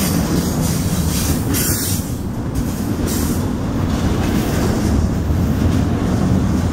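Double-stack intermodal freight train passing close at speed: a steady heavy rumble of steel wheels on rail, with a high hiss from the wheels twice in the first two seconds.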